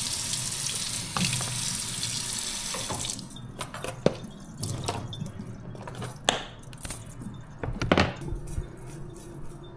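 Kitchen tap running into a sink as salmon is rinsed under it; the water shuts off about three seconds in. Scattered knocks and clatters of handling in the sink follow, the loudest one about two seconds before the end.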